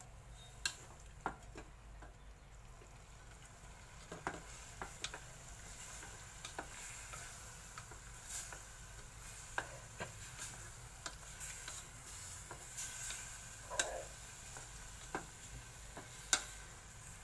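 Chunks of marinated pork belly sizzling as they sear in an aluminium pot, stirred with wooden cooking chopsticks that click and knock against the pot at irregular intervals. The meat is being seared until firm before water is added.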